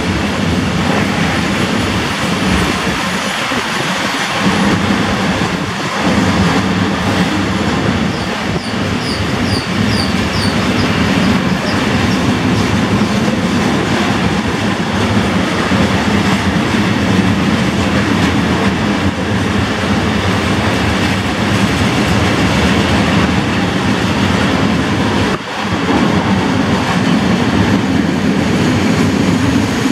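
A freight train of open coal wagons, loaded with coal, rolling steadily past at speed: the loud, continuous noise of steel wheels running on the rails. A few short high squeaks come from the wheels about a third of the way in.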